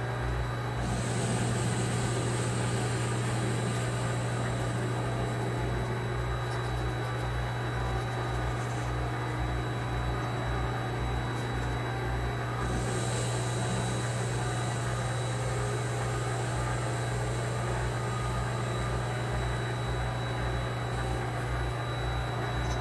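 Vevor MX400 mini lathe running steadily under a facing cut on bar stock: a steady motor hum with a regular low pulsing and a thin high whine. A higher cutting hiss comes in about a second in, fades, and comes back around thirteen seconds.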